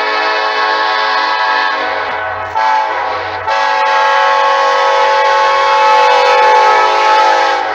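Locomotive air horn blowing a horn show, several notes sounding together as a chord. A long blast gives way about two and a half seconds in to a short blast. A second long blast follows and cuts off near the end.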